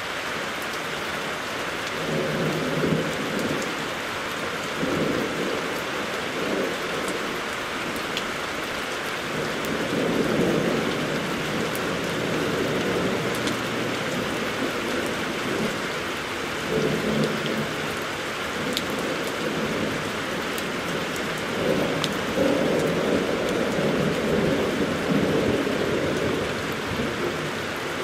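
Heavy rain falling steadily, hissing on grass, pavement and a car roof, with rolling thunder rumbling up and fading several times, loudest in a long roll near the end.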